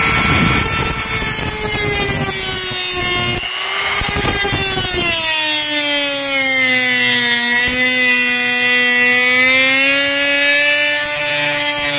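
Mini grinder with a small cutting disc running at high speed, whining as it cuts a slot into a rusted, seized screw head so that a flat screwdriver can turn it. A gritty grinding noise of disc on metal goes with it for the first few seconds, then the whine runs cleaner, its pitch sagging and recovering.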